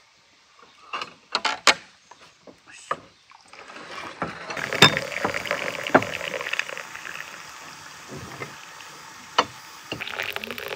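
A few sharp glass clinks, then hot water running from a samovar's tap into a pear-shaped tea glass of strong tea, a steady splashing pour with a few more clinks, and a fresh pour starting near the end.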